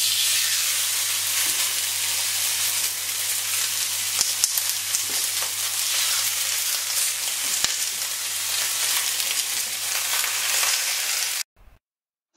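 Beef ribeye steaks sizzling on a hot cast-iron grill pan, a steady hiss with scattered small pops and crackles, freshly laid on to sear. The sizzle cuts off suddenly near the end.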